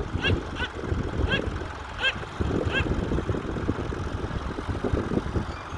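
Massey Ferguson tractor's diesel engine running, a steady low rumble. Over it a bird gives five short calls in the first three seconds.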